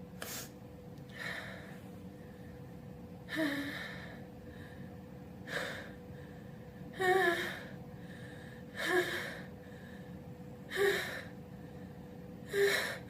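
A person's repeated gasping in-breaths, about eight of them roughly two seconds apart, some with a short voiced 'ah', growing slightly louder: the halting build-up of a sneeze.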